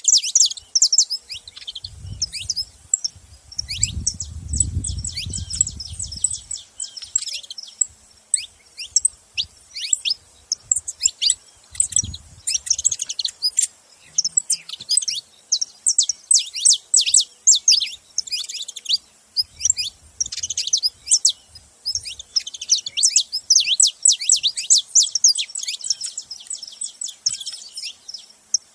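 Several saffron finches (canário-da-terra) chirping and singing together, a dense stream of quick, high, overlapping chirps. A low rumble sits underneath for a few seconds near the start.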